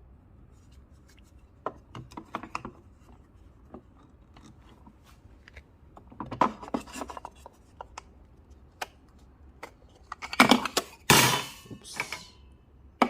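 Handling noise: scattered clicks and knocks of hard objects, then a loud clatter near the end.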